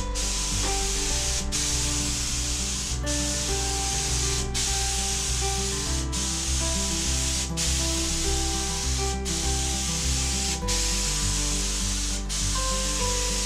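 Gravity-feed paint spray gun hissing as compressed air atomises paint onto a car door. The hiss cuts off briefly about every one and a half seconds. Background music plays underneath.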